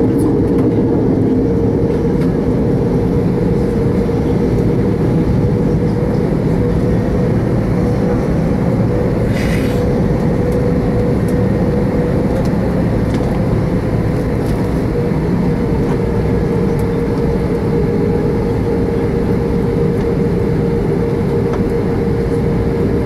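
Airbus A340-600 cabin noise while taxiing: the steady low rumble of its four Rolls-Royce Trent 500 engines at taxi thrust, with a steady hum running under it. A brief faint hiss about nine seconds in.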